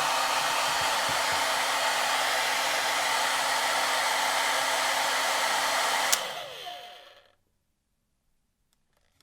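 Hair dryer blowing steadily with a low hum, switched off with a click about six seconds in; the motor whines down in pitch and fades out within about a second.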